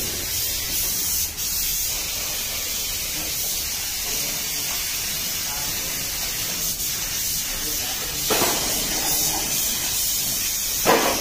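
Compressed-air paint spray gun hissing steadily as paint is sprayed onto motorcycle parts, with louder spells about eight seconds in and near the end.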